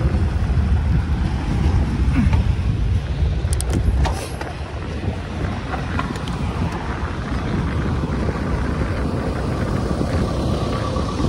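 Freight train running past close by: a steady low rumble with a few sharp clicks, the low end easing off about four seconds in.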